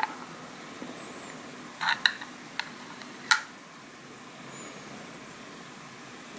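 A few short, sharp clicks and taps from a small tin-and-plastic El Torero chopping-sword magic gimmick being handled and reset, its sword lever moved by hand. The loudest click comes a little past the middle, over a steady low hiss.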